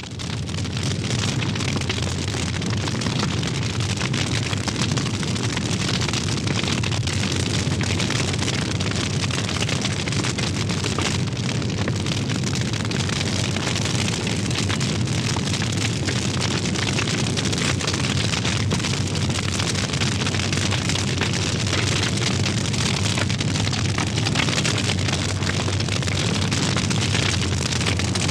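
Large fire burning: a steady low rushing roar with dense crackling throughout, coming up to full level in the first second.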